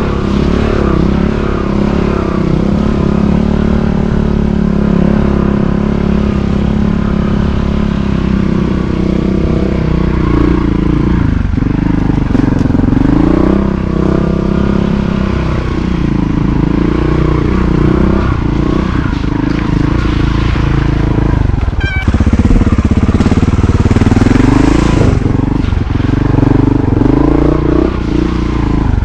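Montesa Cota 4RT trials motorcycle's four-stroke single-cylinder engine running under the rider's throttle. Its pitch sags and picks up again several times as the throttle is rolled off and on, with the sharpest dips about 11, 14 and 22 seconds in.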